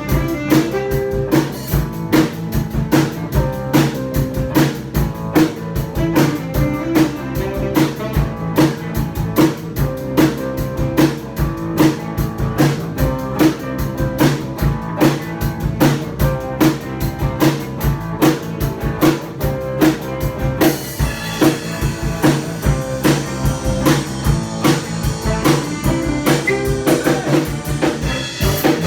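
A band playing a song: a drum kit keeps a steady beat under guitar and bass. About twenty seconds in, the cymbals come in brighter and fuller.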